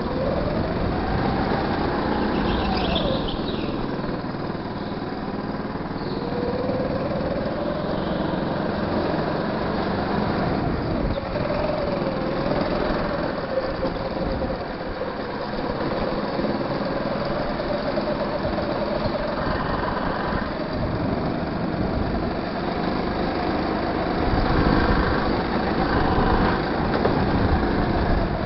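Go-kart engine heard from the driver's seat while lapping a track, its pitch rising and falling with the throttle through the straights and corners, over a constant rushing noise.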